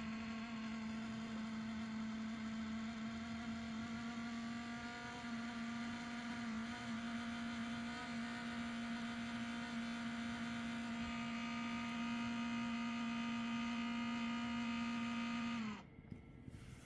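MSI P65 Creator 9SE laptop giving off its faulty noise: a steady humming whine with many overtones. It dips slightly in pitch and cuts off suddenly near the end.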